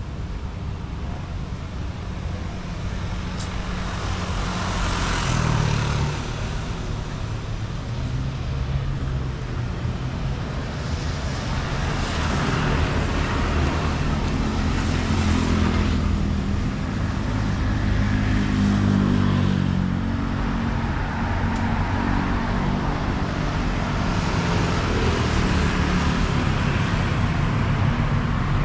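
City road traffic: a steady low engine rumble, with several cars passing close by, each one swelling and then fading away.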